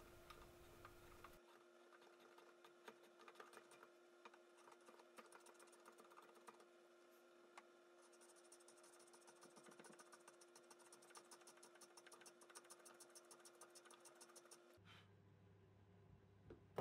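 Near silence: faint room tone with scattered light scratchy ticks, and a faint regular ticking in the second half.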